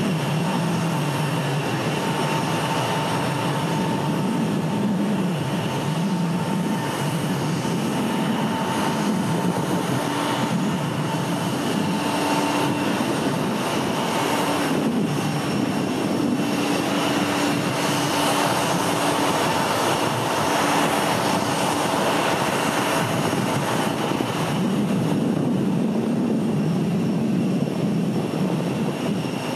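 Jet airliner engines running steadily: a continuous rushing noise with a steady whine held over it.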